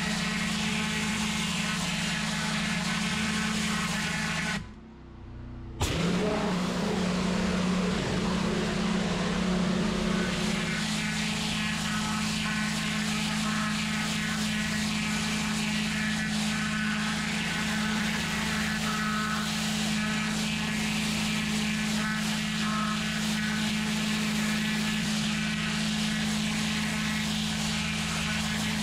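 Pressure washer lance blasting block paving: a steady hiss of the water jet over the machine's steady low hum. About five seconds in the spray cuts out for roughly a second, then starts again suddenly.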